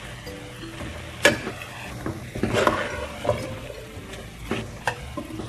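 Metal ladle stirring chopped vegetables in a cooking pot on the stove, with several sharp clinks and scrapes of the metal against the pot.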